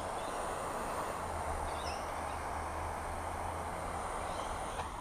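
Butane pen torch burning with a steady hiss.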